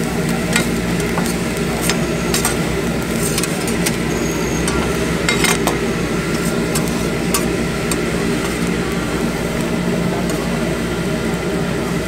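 Metal spatulas scraping and clacking on a flat steel griddle as fried rice is stir-fried, with many short sharp clicks over steady sizzling from the hot plate.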